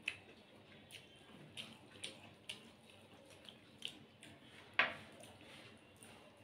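Faint wet eating sounds: fingers mixing rice and curry on a steel plate and chewing. It comes as a string of soft clicks and smacks, with a louder one about five seconds in.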